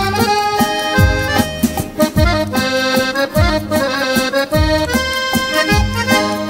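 Piano accordion playing a Hindi film song melody in held notes, with a regular low thump about once a second beneath it.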